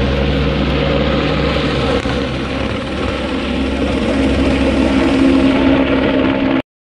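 Helicopter flying overhead, a steady loud drone of engine and rotor. It cuts off suddenly near the end.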